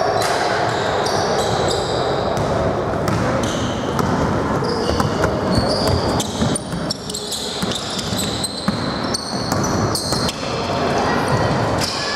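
Basketball game in a sports hall: the ball bouncing on the court in repeated thuds, sneakers squeaking in short high chirps, and players' voices, all echoing in the large hall.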